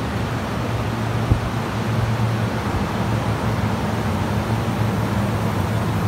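Buffalo Trident evaporator unit of a walk-in refrigerator, its five fans running with a steady whoosh of air and a low hum. One brief thump about a second in.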